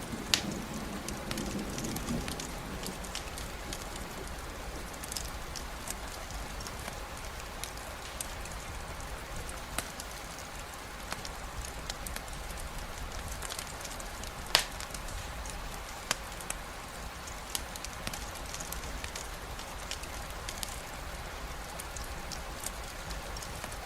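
Steady rain falling as an even hiss, with the low tail of a thunder rumble dying away in the first few seconds. Scattered sharp ticks sound over it, the loudest about half a second in and again near the middle.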